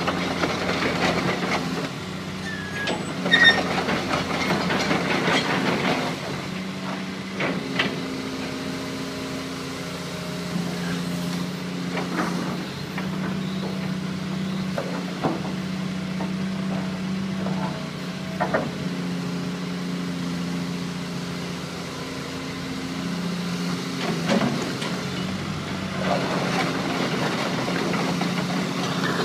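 Hitachi EX200-5 hydraulic excavator's Isuzu diesel engine running, its note swelling and easing as the boom, arm and bucket are worked, with occasional sharp knocks.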